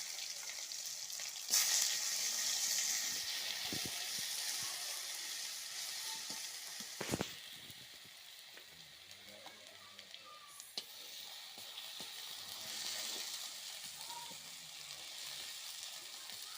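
Garlic paste frying in hot oil with whole spices in a pan: the sizzle jumps louder about a second and a half in, then slowly dies down, with scattered small taps and one sharp click of stirring.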